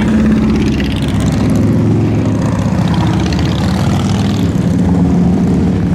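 Harley-Davidson motorcycle engine running steadily with a rapid, even pulse.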